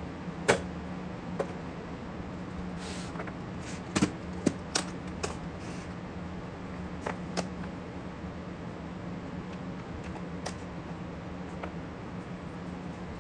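Scattered light clicks and knocks of small parts being handled on a workbench: wires, crimp terminals and a plastic parts organizer box being opened and rummaged. The sharpest click comes about half a second in and a quick cluster of them around four seconds, over a steady low hum.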